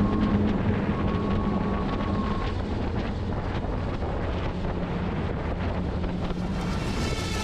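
A landing craft under way at sea, with wind buffeting the microphone over a steady rush of engine and water noise.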